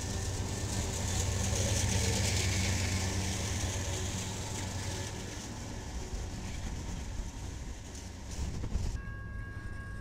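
Train passing: a locomotive's engine running steadily under the rush and rumble of wheels on rail. About nine seconds in, the high rushing noise cuts off sharply and a few thin steady tones remain.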